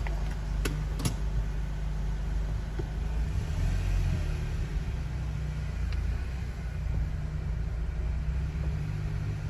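Car on the move: a steady low rumble of engine and road noise, with two short clicks about a second in.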